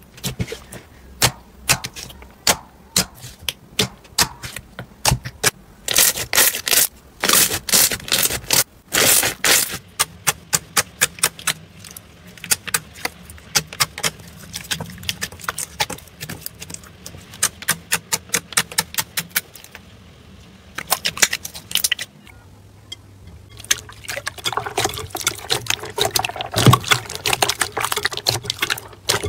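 Hands kneading and poking slime, giving rapid, irregular wet clicks and pops as air pockets in the slime are squeezed and burst, with denser crackling runs in a few places.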